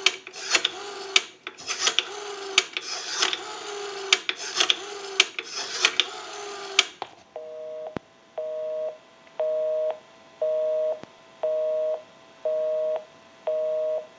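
Rotary dial of a Western Electric 236G payphone being dialled, clicking in quick runs as it spins back after each digit. About seven seconds in, a busy signal starts on the line: a two-tone beep repeating about once a second, because the number called is engaged.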